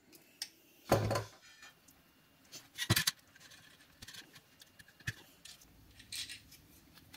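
Hand-tool clicks and knocks at a bench: a crimping tool closing on a ring terminal to crimp it onto a wire, then smaller clicks and clinks as the wire is fitted to a metal diode-mounting plate. The loudest knocks come about one second and about three seconds in.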